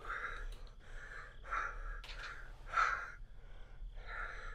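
A man panting heavily in quick, short breaths, a little under two a second.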